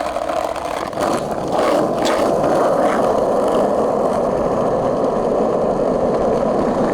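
Skateboard wheels rolling steadily over pavement, growing louder about a second and a half in, with no squeak from the freshly lubricated trucks.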